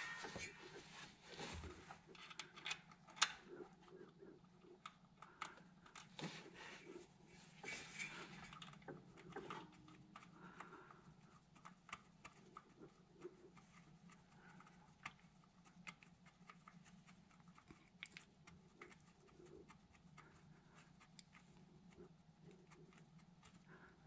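Faint, scattered clicks and scrapes of a power steering hose fitting and its bolt being fitted by hand onto the pump, with one sharper click about three seconds in, over a low steady hum.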